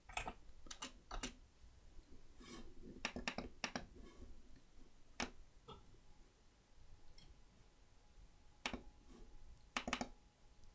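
Faint keystrokes on the Amiga 1200's keyboard, then scattered computer-mouse button clicks, some in quick pairs.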